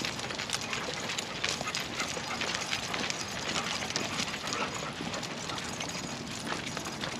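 Footsteps of a walker and a group of dogs' paws on the ground, a steady run of small irregular clicks and scuffs with no barking.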